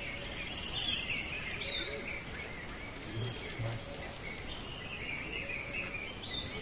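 Small birds chirping continuously over steady outdoor background noise.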